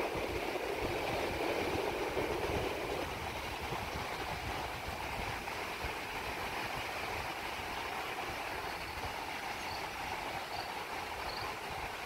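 Steady roar of ocean surf breaking on the shore, a little louder in the first few seconds.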